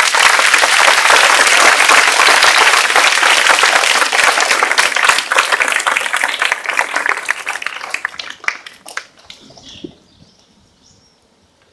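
An audience of many people applauding: dense, loud clapping that thins out to a few scattered claps about eight seconds in and stops by about ten seconds.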